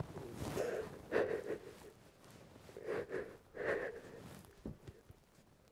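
A man crying quietly: four or so sniffling, breathy intakes with short pauses between them.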